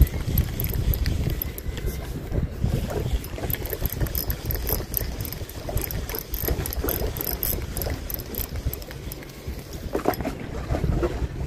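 Fishing reel being cranked to bring back a squid jig, a fast run of light mechanical clicking for several seconds in the middle, over wind rumbling on the microphone.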